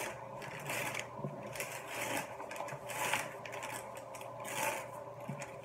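Paper wrapping crinkling and rustling in short irregular bursts as it is pulled open by hand, over a steady low hum.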